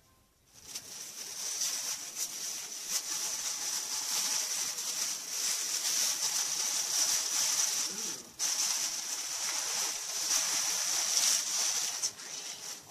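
Packaging crinkling and rustling as an item is handled and unwrapped: a dense run of small crackles, with a brief pause about eight seconds in.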